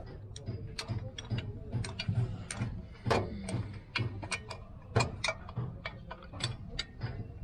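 Steel spanners clicking and clinking against the bolt and nut of a pump pipe flange as they are worked round, in short, irregular metallic ticks over a low hum.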